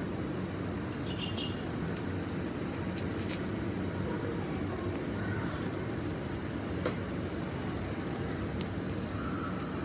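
Steady low rumbling background noise with faint scattered clicks and a few faint brief high chirps.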